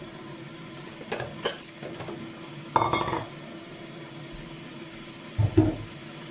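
Dishes and cutlery clinking and knocking: a few light clinks about a second in, a louder rattle near the middle, and two knocks near the end, over a steady appliance hum.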